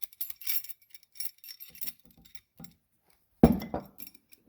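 Thin metal shims clinking and jingling as they are slid onto a bench vise's steel screw shaft, then one heavy metal knock about three and a half seconds in.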